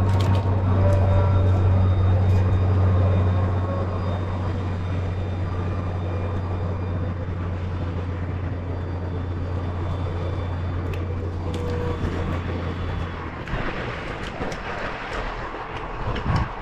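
A heavy engine running steadily with a low, even hum, easing off about three and a half seconds in and stopping near the end.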